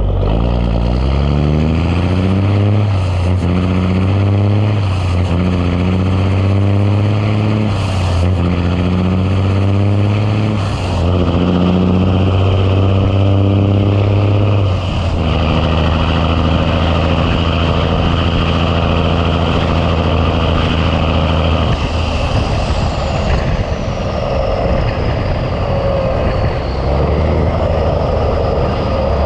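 Big Cam Cummins inline-six diesel in a 1986 Ford LT9000 semi, pulling hard under load. It climbs in pitch through about five gears, with a brief dip at each shift, then settles to a steady run in the top gear.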